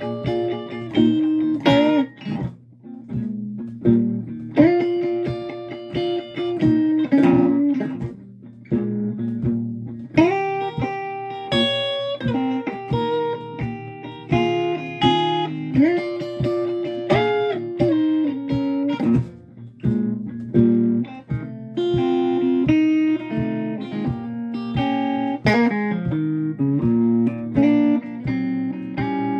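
Schecter electric guitar playing a blues lead: single-note lines with sustained notes and string bends that rise and fall in pitch.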